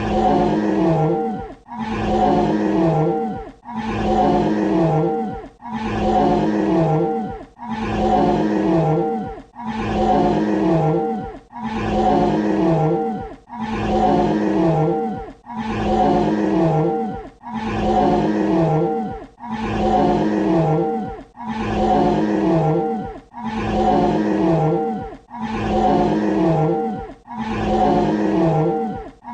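Dinosaur roar sound effect: the same short roar of about two seconds, looped back to back about fifteen times, each with a low tone that bends downward near its end before the next roar begins.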